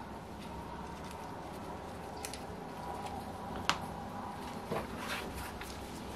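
Quiet handling of the OS FF-240 Pegasus engine's cylinder head and screws with an Allen wrench: a few faint, scattered metal clicks, the sharpest about halfway through, over a steady low hum.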